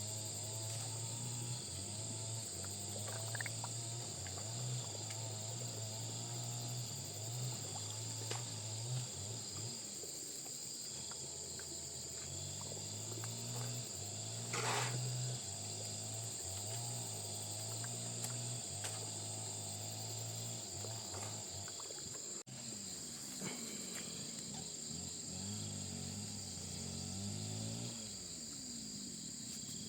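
Steady, high-pitched chorus of insects, with lower wavering animal calls underneath and one brief sharp knock about halfway through.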